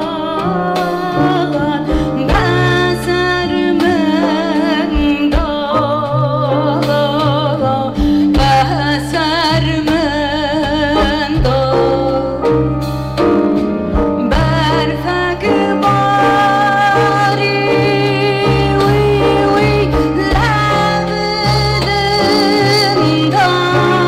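A woman singing live into a microphone, her melody wavering and richly ornamented, over a double bass playing low held notes.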